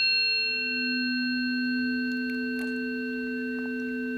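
Two planetary tuning forks, tuned to Venus and Juno, ringing together: a higher fork already sounding with bright overtones, joined about a third of a second in by a lower, steady tone, both holding evenly.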